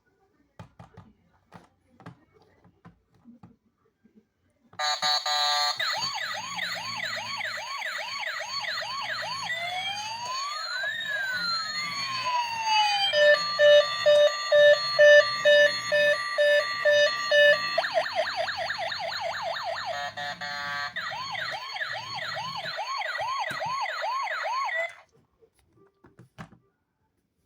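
A toy plays electronic siren sound effects: rapid yelping, then crossing rising and falling wails, then pulsing beeps, then rapid yelping again, over a low rhythmic beat. It starts suddenly about five seconds in and cuts off suddenly about twenty seconds later. A few faint clicks come before and after.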